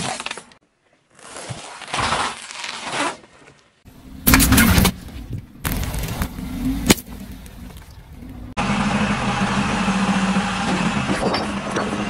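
Car tyre rolling slowly over objects on pavement and crushing them, in a string of short takes: crunching and crackling with sharp cracks, the sharpest about seven seconds in. In the last few seconds a car's engine runs steadily.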